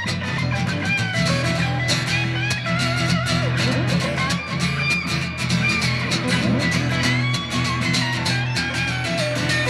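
Rock music played by a band: an electric guitar plays a lead line with bent, wavering notes over a steady bass and drums.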